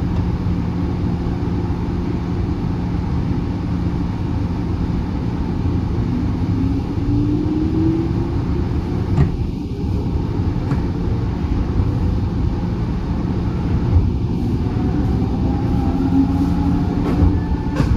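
Running sound inside a 103 series electric train car: steady wheel-and-rail rumble with a steady hum, and motor and gear whine rising in pitch twice. A couple of sharp clicks come about halfway through and near the end.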